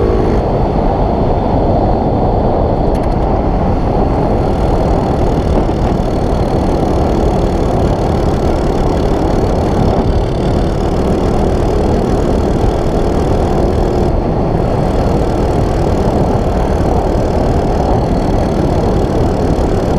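Honda Wave 125 motorcycle's single-cylinder four-stroke engine running steadily, heard as a dense, even low rumble.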